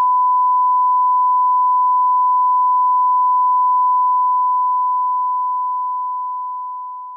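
A single long electronic beep: one steady, pure tone held unchanged for about four seconds, then slowly fading away near the end.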